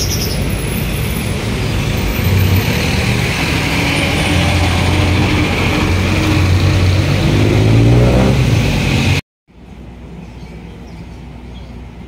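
Busy road traffic passing close by: the engines of trucks, cars and jeepneys running, with one engine rising in pitch as it accelerates about eight seconds in. The sound cuts off abruptly a little after nine seconds, giving way to a much quieter outdoor background.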